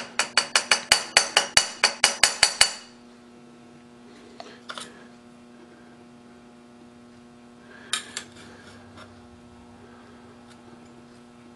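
An adjustable wrench tapping against a metal fixture, a quick run of sharp ringing taps, about five a second for under three seconds, nudging the fixture over a little. After that a steady electrical hum with a couple of faint knocks.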